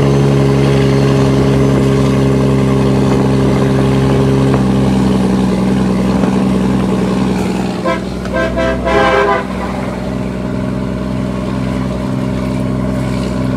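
Cummins ISX diesel engine of an International ProStar truck running steadily, its note shifting about four and a half seconds in. Around eight seconds in, a vehicle horn sounds in a quick run of short toots.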